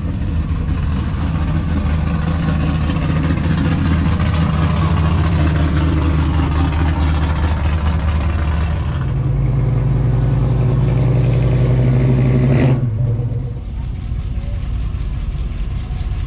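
A car engine running steadily, its pitch shifting about nine seconds in. A brief sharp sweep comes near thirteen seconds, after which the sound quietens.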